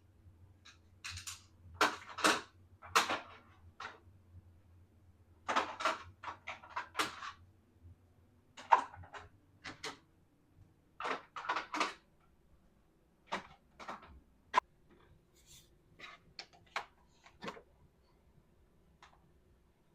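Small plastic toy kitchen pieces being handled and set down. Irregular clicks, taps and short rustles come in small clusters every second or two, and fade to a few isolated ticks near the end.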